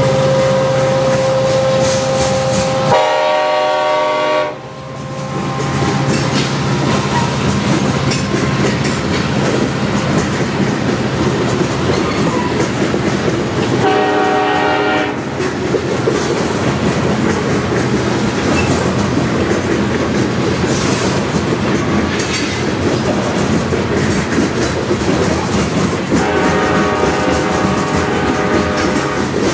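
Freight train rolling past close by, the wheels clattering steadily over the rails, with the lead CN SD70M-2 locomotive's engine running at the start. The locomotive's Nathan K5LLA five-chime air horn sounds three times: a short blast about three seconds in, another near the middle, and a longer one near the end.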